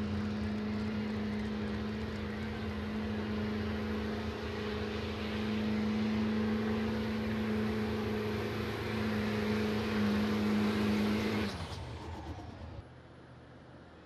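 A pulling truck's engine held at full throttle under load, steady in pitch over a roar of exhaust. Near the end it lets off, its pitch falls away, and then the sound drops abruptly to a faint hum.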